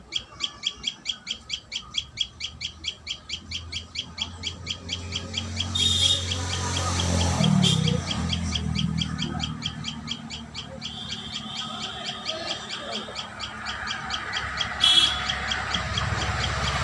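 Common tailorbird chirping in a fast, even series of high notes, about five a second, which gives way after about ten seconds to a thinner, steadier high call. Low rustling runs underneath, with two short sharp noises, one about six seconds in and one near the end.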